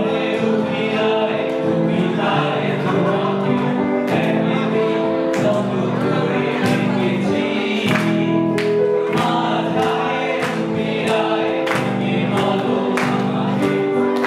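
Two male vocalists singing a Bengali song live through microphones, over an electronic keyboard accompaniment of held chords with a steady percussive beat.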